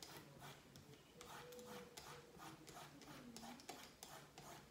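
Vegetable peeler scraping the skin off a zucchini in faint, repeated short strokes, roughly two a second.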